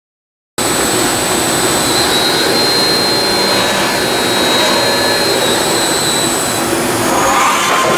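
Milltronics VMD-30 CNC vertical machining center running, its table traversing along the X axis. A loud, steady machine noise starts abruptly about half a second in, with a high whine that changes pitch near the end.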